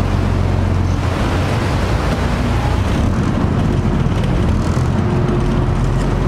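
A sightseeing boat's engine running steadily, a low hum over the rush of water along the hull.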